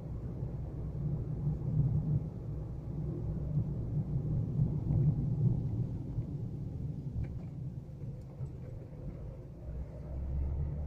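Low, steady rumble of a car driving along a paved street, engine and road noise heard from inside the car.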